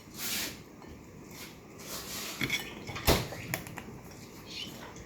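Cooked blue crab being pried open by hand over a plate: a brief rustle, scattered small clicks of shell, and one sharp knock about three seconds in.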